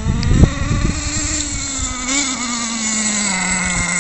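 The small two-stroke nitro glow engine of an HPI Bullet MT 3.0 RC monster truck runs as the truck drives. Its pitch rises briefly, then settles gradually lower as the throttle eases off. A few low thumps come around half a second in and make the loudest moment.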